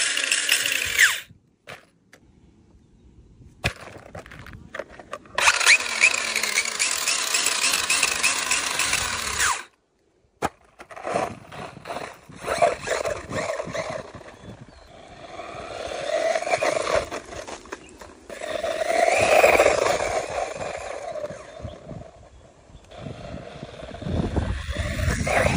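Electric RC buggy's motor whining as it revs with the wheels spinning free, first briefly and then for about four seconds, cutting off suddenly. Afterwards the buggy drives over gravelly dirt, with tyres scraping and the motor whine swelling and fading.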